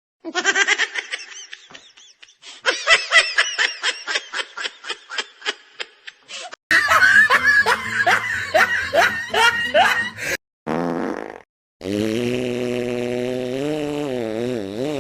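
A run of stock comedy sound-effect clips: several bursts of laughter in quick, pulsing peals, then a long held pitched sound that wavers up and down.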